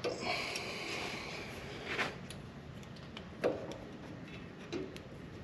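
Metal brake parts and hand tools being handled: a scraping slide in the first second or so, then three sharp metallic knocks spaced about a second and a half apart.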